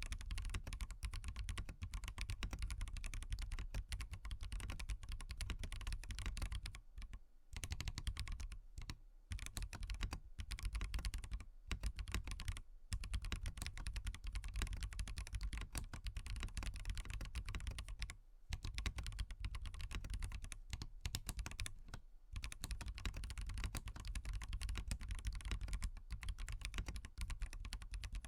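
Fast typing on a SWAGKEYS Transition Lite mechanical keyboard with Bsun Bumblebee tactile switches and no foam inside: a continuous run of key clicks, broken by a few brief pauses.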